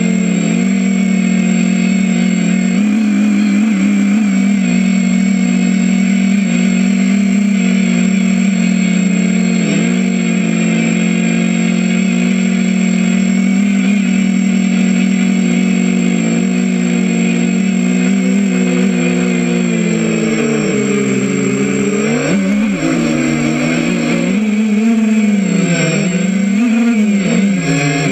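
Brushless motors and propellers of a 250-size FPV racing quadcopter, heard from its onboard GoPro: a steady buzz that, about two-thirds of the way through, swings up and down in pitch several times as the motors speed up and slow down.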